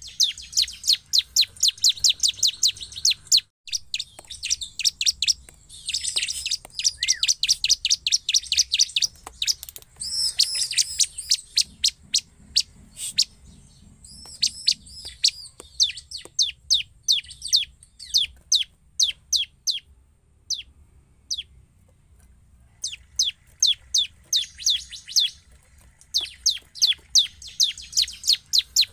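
Bar-winged prinia (ciblek) singing: long runs of sharp, high notes repeated quickly, about three or four a second, with a brief lull about two-thirds of the way through before the runs resume.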